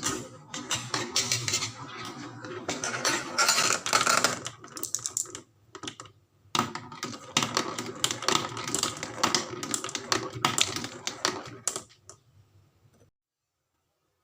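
Marbles clattering down a toy marble run: rapid, uneven clicks and rattles in two stretches of several seconds, stopping about two seconds before the end.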